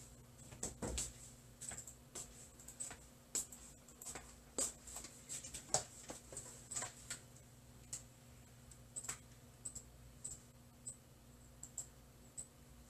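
Faint, irregular clicks and taps, a few a second, over a low steady hum.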